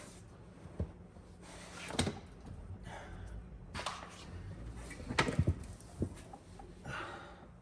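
A few scattered knocks and clunks of hard parts being handled inside a car's interior as its seats are being taken out, the loudest a short cluster about five seconds in.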